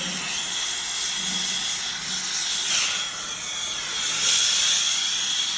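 Brazing torch flame hissing steadily, with a thin high whistle under the hiss, as it heats a copper HVAC line-set joint for brazing.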